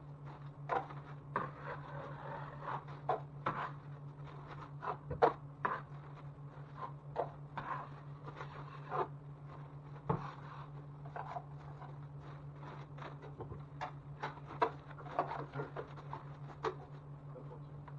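Drywall hand tools at work: irregular short scrapes and taps, as of a knife working joint compound, over a steady low hum.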